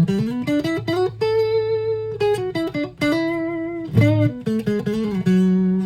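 Westone Concord II electric guitar played clean on its neck pickup: a single-note melodic phrase with a couple of longer held notes.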